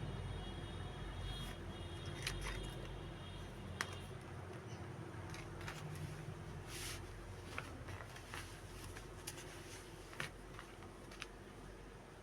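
A parcel being handled and opened: scattered rustles and small clicks of packaging, over a low rumble that fades during the first few seconds.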